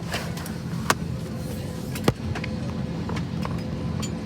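Airliner cabin ambience: a steady low hum of the aircraft's air system, with two sharp knocks about one and two seconds in and a few faint ticks.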